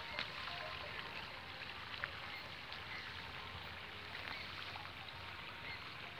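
Hand-weeding in a rice paddy: faint rustling and small crackles of rice plants and weeds being pulled, over an even outdoor hiss.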